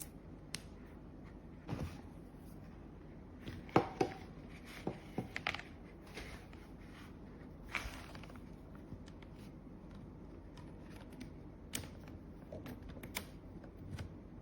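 Scattered light clicks and knocks of small objects being handled, over a faint steady hum.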